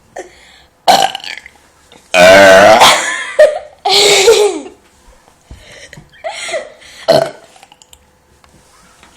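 A person burping on purpose several times in a row. The longest and loudest burp, drawn out for over a second with a wavering pitch, comes about two seconds in, with shorter burps before and after it.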